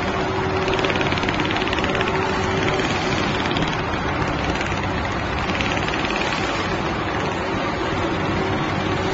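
Computerized template sewing machine with a rotating head running at speed, its needle stitching in a rapid, even clatter over a steady mechanical hum as the head follows the pattern.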